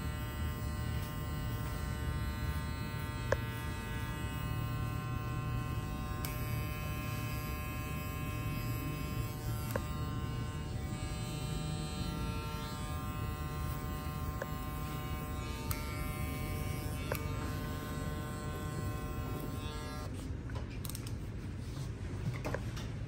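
Electric hair clippers running with a steady buzz, with a few faint ticks; the buzz stops about three seconds before the end.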